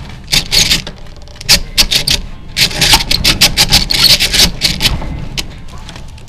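Millers Falls No. 77 eggbeater hand drill boring into wood: the bit rasps and scrapes in several uneven bursts, with scattered sharp clicks.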